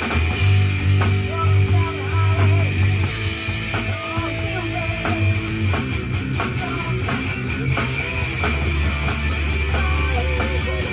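Rock drum kit played along to a rock track with electric guitar and bass, the drum hits keeping a steady beat.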